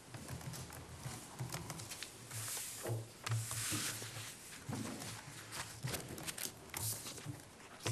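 Faint meeting-room noise: papers rustling twice, with small clicks and shuffles over a low hum that comes and goes.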